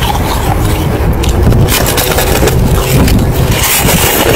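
Wind rumbling on the microphone, with crunches and scrapes of packed snow as a snow block is handled, and a louder crunch near the end as it is bitten into.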